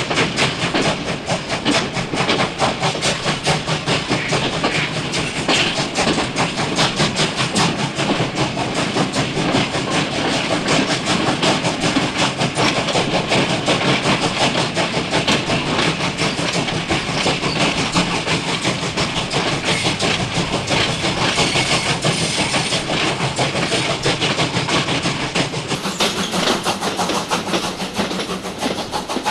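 A real steam train chugging along, recorded from the doorway of a moving carriage: a steady, rhythmic clickety-clack of wheels over the rails with the locomotive's chuffing.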